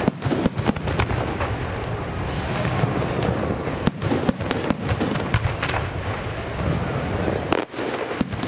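Aerial fireworks display: many sharp shell bursts and bangs in quick succession over a dense, continuous crackle, with a brief lull near the end.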